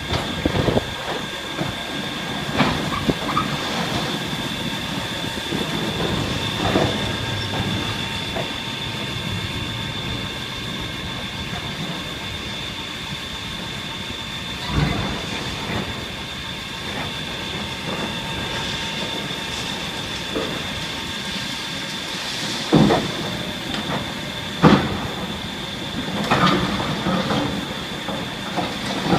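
Bridge demolition site: steady machinery noise with a continuous high whine, broken by a few sharp metallic clanks, the loudest in the second half.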